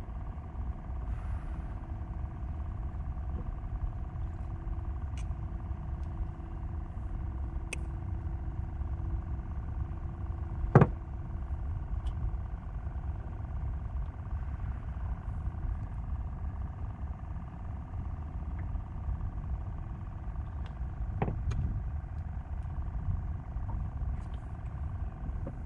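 A steady low rumble with a faint, even hum over it. A few sharp clicks break it, one loud click about eleven seconds in and another about twenty-one seconds in.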